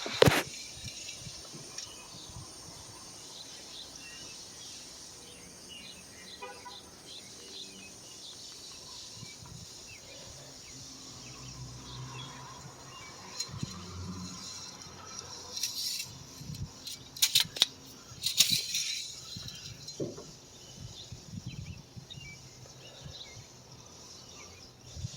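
Outdoor ambience with a steady high insect buzz, broken by a few short clicks and rustles, clustered in the second half, from handling near the truck.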